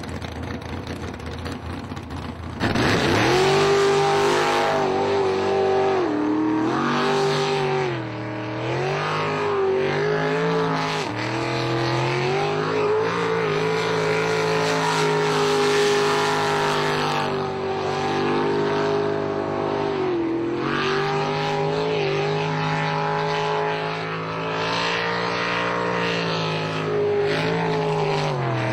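Jet boat engine running hard, coming in loud about two and a half seconds in. Its pitch drops and climbs back several times as the throttle is eased and opened again.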